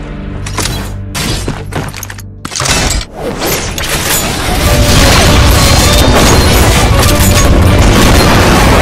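Action-trailer soundtrack: a low, held music bed broken by brief dropouts, then a build, and from about five seconds in loud, dense music with booming hits.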